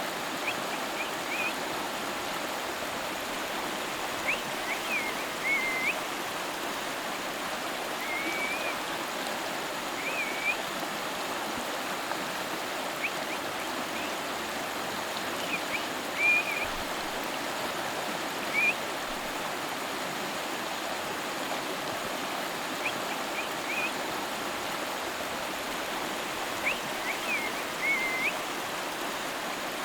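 A river flowing with a steady, even rush of water. Short high chirps come in small groups every few seconds over it.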